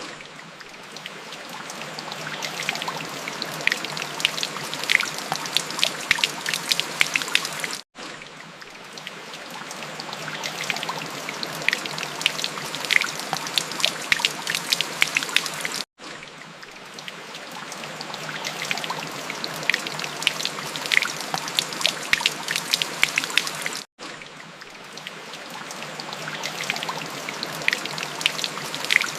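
Rain falling steadily: an even hiss with many sharp, distinct drops. The sound cuts out for an instant and fades back in about every eight seconds, where a short rain recording is looped.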